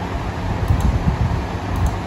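Steady background hiss with a low, uneven rumble and a faint hum underneath.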